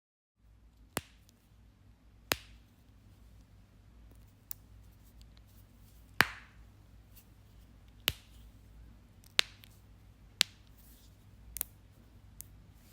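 Knuckles cracking: about nine sharp pops, one every second or two at uneven spacing, over a faint low hum.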